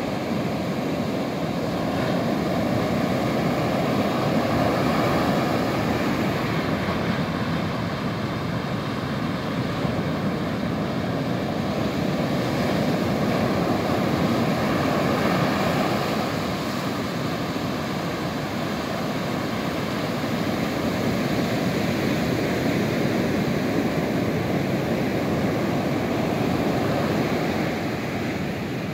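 Ocean surf breaking and washing up a sandy beach: a steady rush that swells and eases as each wave comes in.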